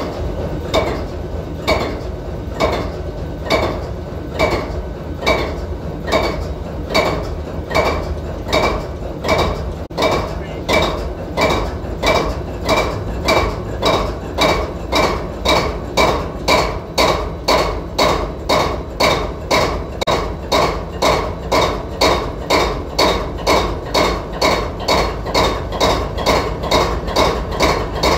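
GE 7FDL16 16-cylinder locomotive diesel engine starting up cold on its first start after storage. A steady low rumble runs under a regular clanking knock that quickens from about one a second to about two a second partway through, as the engine picks up speed.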